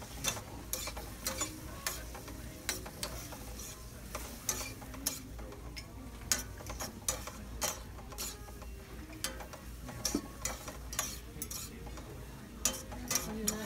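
Metal utensils clinking and scraping against a skillet as meat in a cream sauce is stirred over a gas burner, irregular clinks about two a second, with a steady sizzle from the pan underneath.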